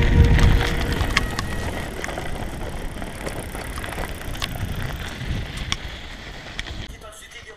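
Loaded touring bicycle rolling fast down a gravel forest track, tyres crunching over stones with scattered sharp clicks and rattles, and wind rumbling on the bike-mounted microphone. It all fades out gradually toward the end.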